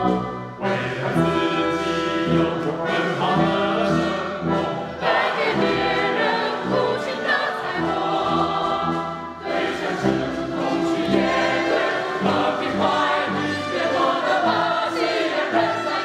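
Choir singing with orchestral accompaniment.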